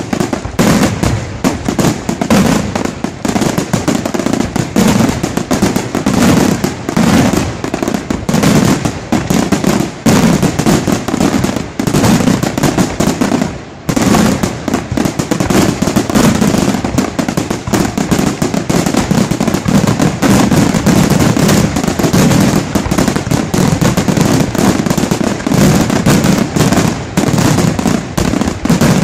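Aerial fireworks display: shells bursting in rapid, overlapping succession, a dense continuous barrage of bangs, with a brief lull about halfway through.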